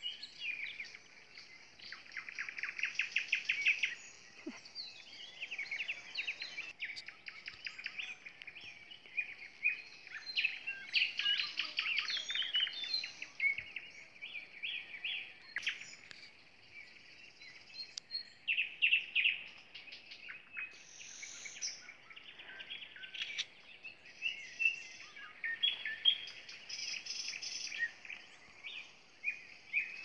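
Nightingale singing: phrases of rapid repeated notes and varied whistles, broken by short pauses, with other songbirds singing and calling around it.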